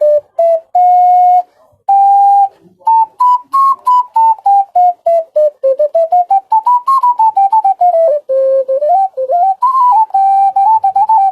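Five-hole ocarina playing a major scale, one clear, nearly pure note at a time, each tongued separately. A few slow held notes come first, then the scale runs up and down twice, ending on the low note.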